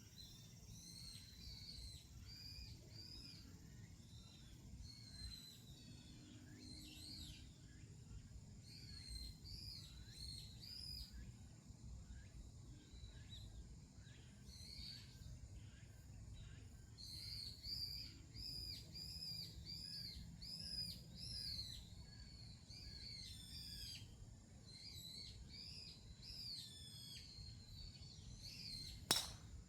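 Small songbirds chirping: many short, arched, high notes repeated throughout, over a faint low rumble. One sharp click near the end.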